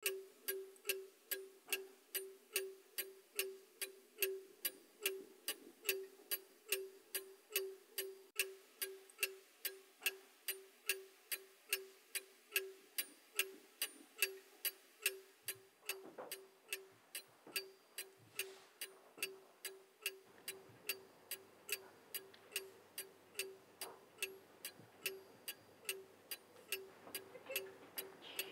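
Pendulum wall clock ticking steadily, about two ticks a second, each tick with a short ringing note.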